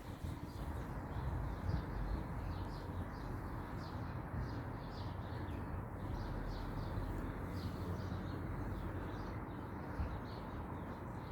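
Small birds chirping repeatedly in short calls over a steady low rumble.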